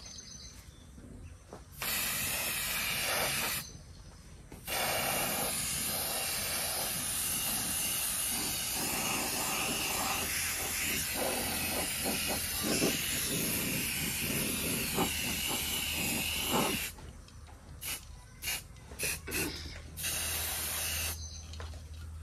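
Aerosol spray-paint can spraying red paint onto a steel wheel rim in bursts. There is a spray of about two seconds, a long steady spray of about twelve seconds, then several quick short puffs and a final brief spray.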